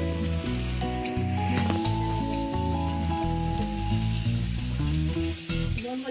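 Onion-tomato masala with red chili powder sizzling in a kadhai, stirred and scraped with a spatula. Background music with a steady melody plays over it.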